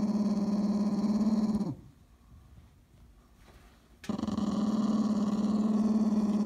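Puppy growling in play, two long steady low growls with a pause of about two seconds between them.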